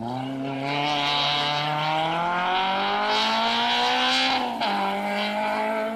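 Rally car engine accelerating hard on a special stage. Its note climbs steadily for about four and a half seconds, drops sharply at an upshift, then carries on at a higher, steadier pitch.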